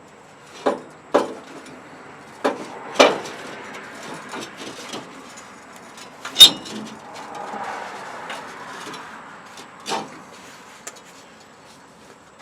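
Metal clanks and knocks as an exhaust pipe section is worked back into place against the exhaust flange: about six separate knocks, the loudest about six and a half seconds in, with some scraping and shuffling between them.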